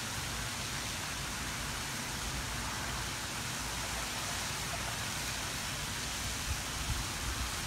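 Steady, even background hiss of outdoor ambient noise, with no distinct events.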